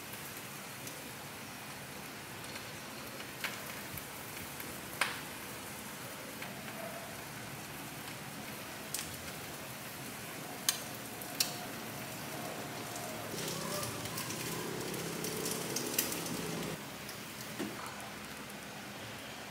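Metal tongs clicking against a ceramic bowl as food is set into it: a handful of sharp clicks over a steady hiss, which grows a little louder for a few seconds near the end.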